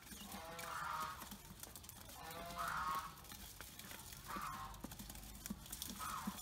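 Ducklings pecking feed from a metal bowl, giving scattered light taps and clicks. Over them a short pitched call, likely from a waterfowl, comes back about every two seconds and gets shorter each time.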